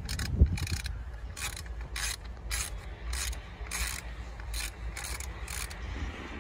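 Socket ratchet clicking in short strokes, about two a second, as a 10 mm bolt holding the turbo hose is undone. There is one louder knock about half a second in, and a steady low rumble underneath.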